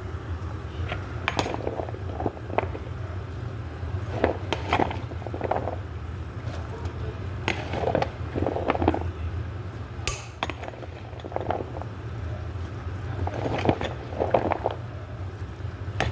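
Pots, lids and cooking utensils clinking and clattering in scattered bursts over a steady low hum.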